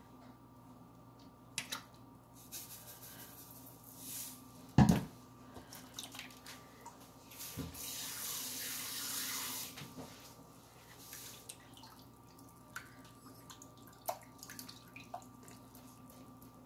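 Water running for about two seconds, most likely from a tap into a bowl, starting about eight seconds in. Around it come knocks and clatter of containers being handled, the loudest a single knock about five seconds in.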